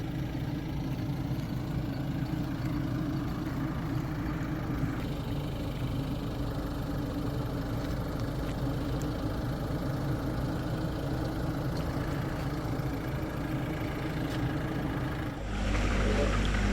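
An engine idling steadily with an even low hum, growing louder with a heavier low rumble about 15 seconds in.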